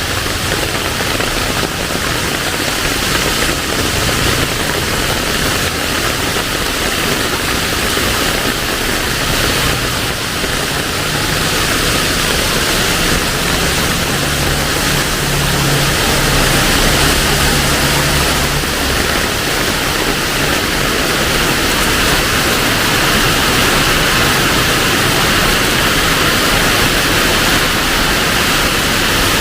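Heavy rain falling steadily, a loud, even hiss. A low steady hum joins it in the middle for several seconds.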